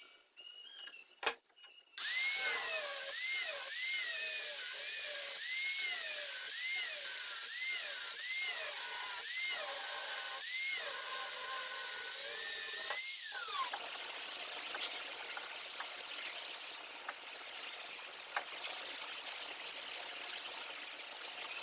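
Small electric power tool motor running, its whine rising and falling in pitch about every two-thirds of a second, then settling into a steadier high whine with hiss from about 13 seconds in.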